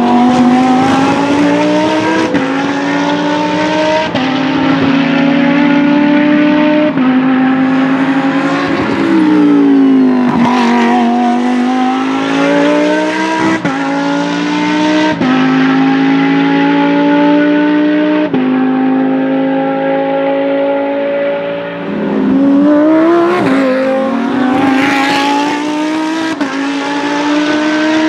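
Lamborghini Huracán Super Trofeo EVO's naturally aspirated 5.2-litre V10 under hard acceleration. The engine note climbs and drops sharply at each quick upshift of the sequential gearbox. Twice the revs fall away and then climb again as the car comes off the throttle and pulls hard once more.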